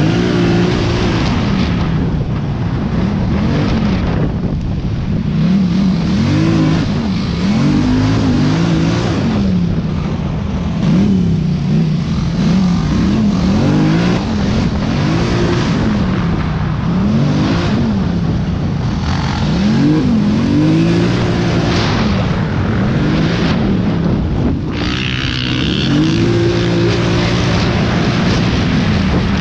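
Polaris ATV engine under way, its pitch rising and falling over and over as the throttle is opened and eased, with wind rushing over the helmet-mounted microphone.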